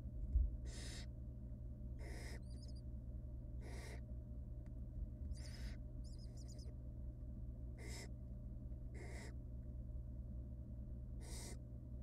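Barn owl nestlings giving their hissing begging calls while being fed: about seven short hisses, one every second or two, with a couple of brief high chirps between them. A dull bump comes about half a second in, and a steady low hum runs underneath.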